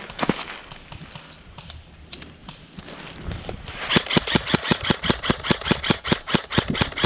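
Airsoft gun firing a rapid, even string of shots, about seven a second, starting about four seconds in. Before that, a few scattered clicks and rustling.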